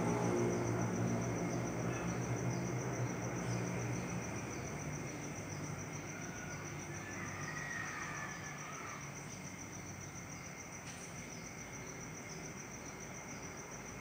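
A steady, high-pitched insect trill, evenly pulsed, with a low hum fading out over the first few seconds and a few faint higher notes about halfway through.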